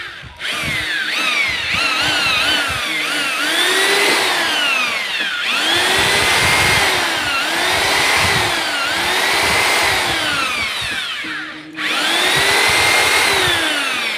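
Makita corded electric drill being test-run: its motor whine rises and falls in pitch as the trigger is squeezed and eased, with a few quick blips at first and then long spin-ups and slow-downs. The motor cuts out briefly near the end, then spins up again.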